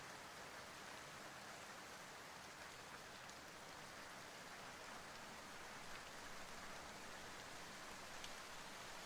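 Steady rain falling: an even, soft hiss with a few faint drop ticks.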